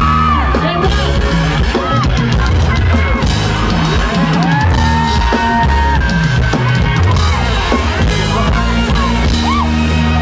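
A live band playing a pop-rock song loudly through a concert PA, with drums and bass guitar, and fans yelling over the music.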